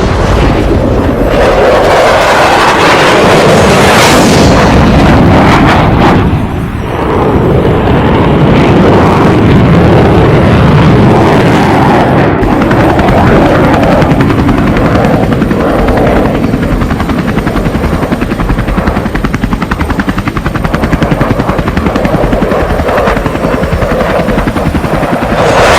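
Helicopter sound effect: a loud, continuous rotor thudding, with close rapid beats through the second half.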